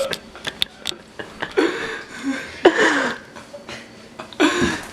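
People laughing and crying out in three loud bursts, with a few short clicks in the first second.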